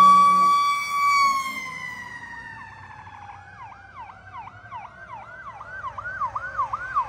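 Fire truck sirens. One siren holds a steady high wail, then winds down in a long falling glide over several seconds. From about two and a half seconds in, a second siren yelps in quick rising-and-falling sweeps, about two or three a second, growing louder.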